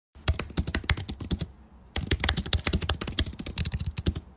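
Rapid computer-keyboard typing clicks in two runs, with a brief pause about a second and a half in.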